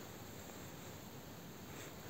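Quiet: only a faint, steady hiss, with no distinct sounds.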